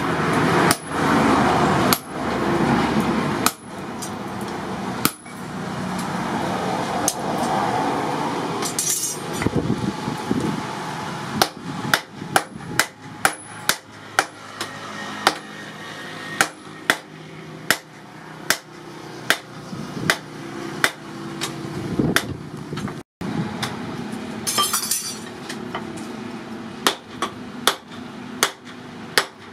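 Blacksmith's hand hammer striking red-hot steel on a small anvil: sharp metallic blows, spaced out and irregular over a steady rushing noise in the first third, then a steady run a little faster than one a second.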